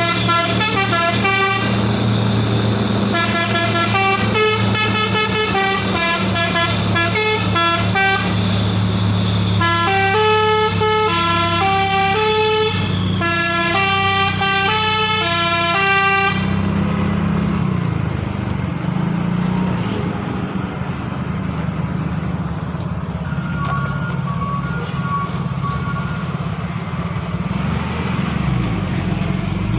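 Old-style telolet horn on a truck, a multi-tone air horn playing a quick stepped melody of short notes for about the first half, over the truck's diesel engine running. The horn then stops and the engine runs on alone, with a few faint horn notes briefly returning.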